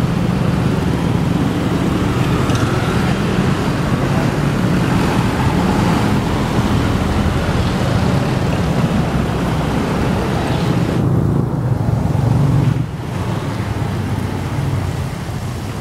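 Road traffic on a wet street: large buses' diesel engines running as they pass close by, over a steady hiss of tyres on the wet road. The level drops suddenly about thirteen seconds in.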